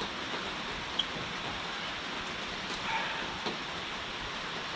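Steady rain falling, a continuous even hiss, with a single sharp tick about a second in.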